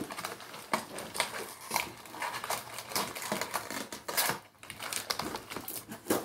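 Gift packaging being handled and unwrapped: irregular crackling, rustling and small clicks, with a brief lull a little after four seconds in.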